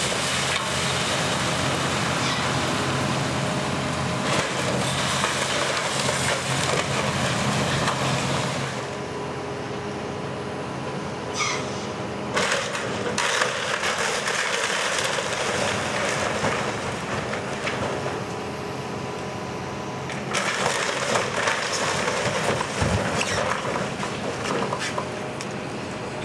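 Heavy demolition machinery running with a steady engine hum, while wood and debris crunch and crack as the building is torn down and crushed. The crunching comes in three long stretches: one at the start, one about halfway, and one near the end.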